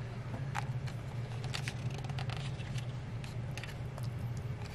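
Faint clicks, scrapes and paper rustles of hands handling a hardcover picture book's pages, over a steady low hum.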